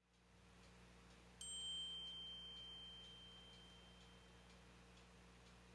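A single high, clear ringing tone starts suddenly about a second and a half in and fades away over about three seconds, over a low steady hum and faint regular ticking.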